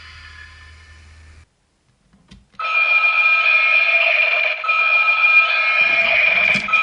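Kamen Rider transformation device sound effect: a fading electronic tone, a second of silence broken by a small click, then a loud, steady alarm-like electronic tone that dips briefly twice.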